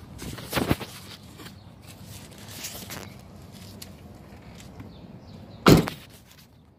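A car door shut with one solid thump near the end, after a few softer knocks and rustles.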